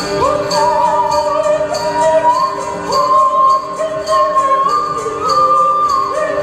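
Music: a high voice or instrument holding long, sliding notes over a steady jingling beat of about three strikes a second, like a tambourine.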